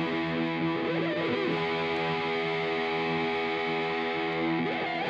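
Background rock music led by distorted electric guitar: held chords with bending lead notes about a second in and again near the end.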